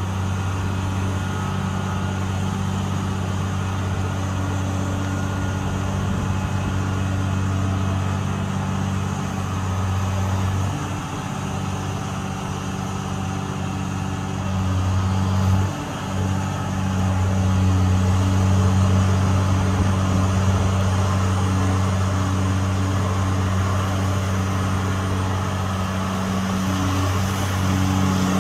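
Diesel engine of a hydraulic excavator on a dredging barge running steadily under load as it digs underwater, a low engine hum that dips briefly twice and then runs louder for the last ten seconds or so as the bucket is lifted.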